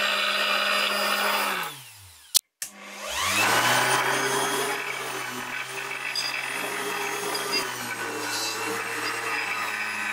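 Electric power-tool motor running, winding down about two seconds in, a sharp click, then spinning back up to speed and running steadily again.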